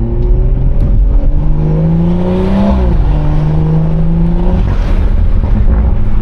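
BMW 340i's turbocharged B58 inline-six accelerating on a loud aftermarket exhaust: the engine note rises, drops sharply at an upshift about three seconds in, then climbs again before easing off near the five-second mark.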